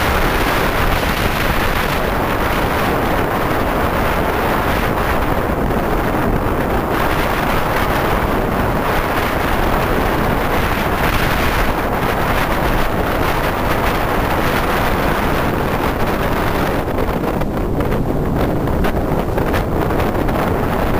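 Strong wind of about 25–30 knots buffeting the microphone on a sailboat's deck under sail, with water rushing along the heeled hull: a steady, loud rush.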